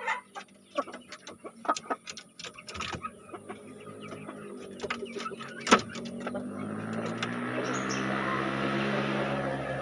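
Scattered light clicks and knocks, with one sharper knock about halfway. Then, from about six seconds, a steady motor hum with several pitched lines sets in and grows louder.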